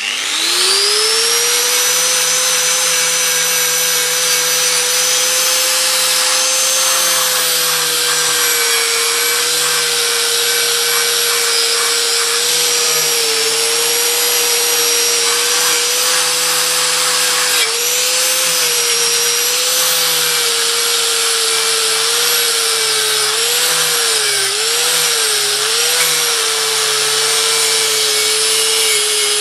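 Electric power tool motor switched on, spinning up in about a second to a steady high whine. Its pitch wavers and dips briefly several times later on, as if the tool is being loaded against the work.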